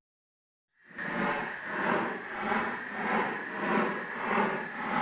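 A rhythmic rasping sound effect, like back-and-forth sawing, swelling and fading about every 0.6 s. It starts after a brief moment of silence.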